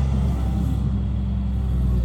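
Caterpillar 336D excavator's C9 diesel engine running steadily, its sound easing slightly in the middle and picking up again near the end.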